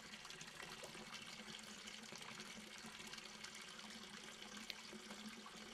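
Near silence: a faint steady hiss with a low hum, and one small click near the end.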